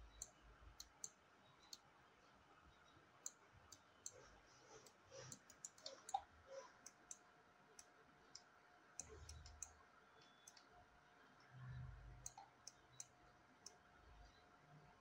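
Faint computer mouse clicks, many of them at irregular intervals, with a couple of soft low thuds.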